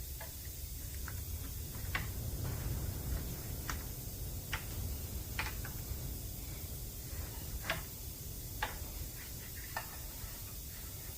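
A drill running steadily with a low hum while cutting into a cast iron casting. About seven sharp, irregular ticks sound over the stretch.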